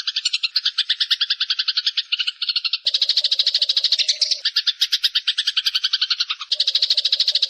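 Eurasian tree sparrow (burung gereja) giving a long, rapid chattering trill, a fast, even run of notes. The trill changes in tone about three seconds in and again a second before the end.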